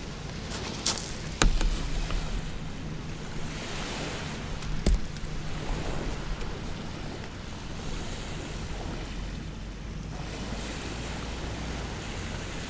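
Small waves washing on a shingle beach with wind on the microphone, a steady surf hiss and low rumble. A few short sharp knocks stand out, a couple about a second in and one near five seconds.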